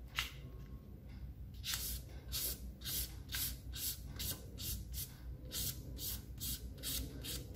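Felt-tip marker scratching across folded origami paper as a paper crane's wing is coloured in: one stroke at the start, then quick back-and-forth strokes, about three or four a second, from about two seconds in.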